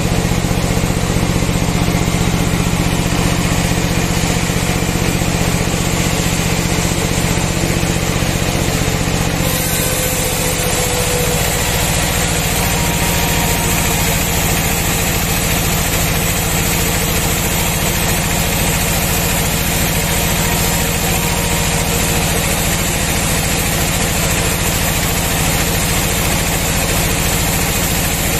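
Sawmill band saw running with a steady motor hum. About ten seconds in, the sound changes and a high hiss rises as the blade saws along a log of kruing hardwood.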